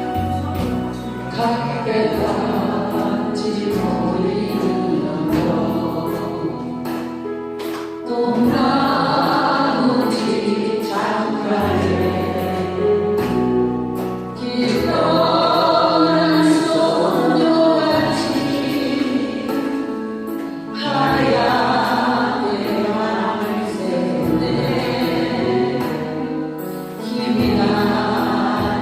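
Korean song with a backing band, sung by a group of voices together. The singing comes in over the instrumental accompaniment about eight seconds in.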